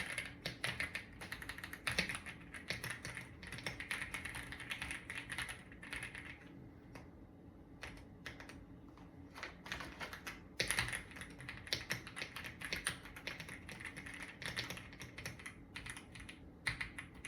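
AULA F75 mechanical keyboard being typed on in quick runs of keystrokes. The typing thins out to a few scattered keys from about six to ten seconds in, then picks up again.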